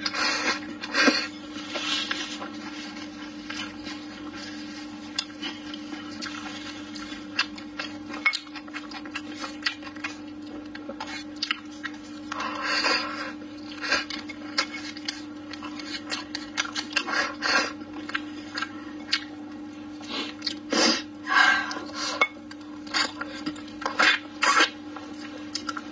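Close-up eating sounds: chewing, slurping and sucking on mouthfuls of rice and braised pork trotter, with chopsticks clicking and scraping against the bowl. A steady low hum runs underneath.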